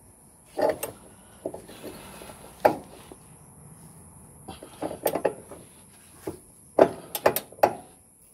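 Metal clanks and clicks of a wrench lengthened with a steel pipe being worked on a rear suspension bolt under a car, in irregular bursts of knocks with a busier cluster near the end.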